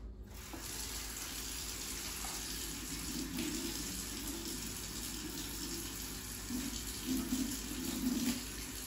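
Water running steadily for several seconds, as from a kitchen tap, while water is measured out for the apple slices.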